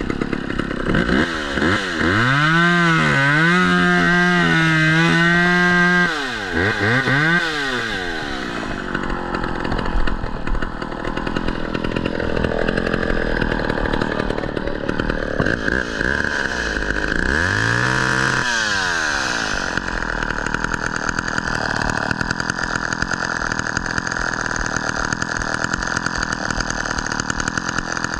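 Chainsaw revved up and held at full throttle for about five seconds, then dropping off. It is blipped briefly twice, once just after and once past the middle, and then settles to a steady idle.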